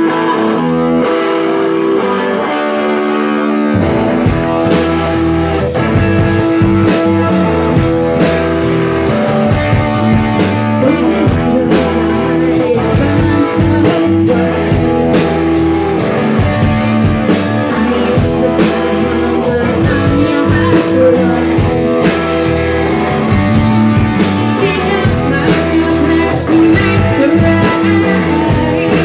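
Live rock band playing loud: distorted electric guitar alone for the first few seconds, then drums and bass guitar come in about four seconds in, with a woman singing over it.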